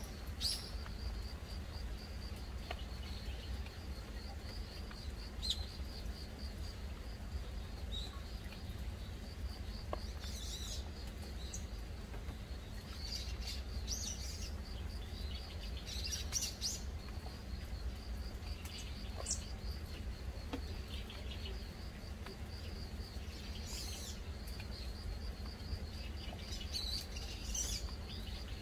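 Birds chirping now and then in short bursts over a steady, evenly pulsing insect trill, with a soft even hiss of gentle rain and a low rumble underneath.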